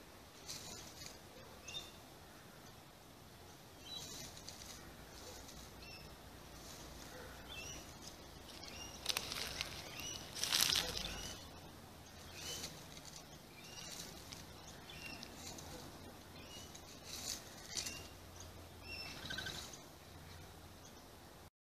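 Australian brush-turkey scratching and rustling through dry leaf litter in bursts, loudest about nine to eleven seconds in, while small birds give short, high chirps again and again in the background.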